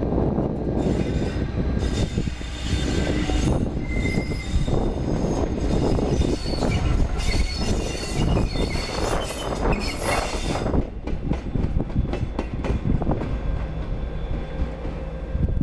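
Virgin Trains Class 57 diesel locomotive passing close by, its EMD two-stroke diesel engine rumbling steadily. High squeals and clicking from its wheels on the rails for the first ten seconds or so, then fading as it moves away.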